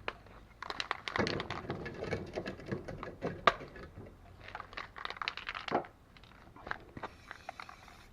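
Aerosol spray paint can being shaken, its mixing ball rattling in three irregular clicking bursts.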